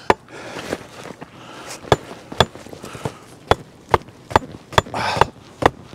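Hatchet striking the top of a wooden stake, pounding it into a clay pond bottom: a string of sharp wooden knocks, about two a second.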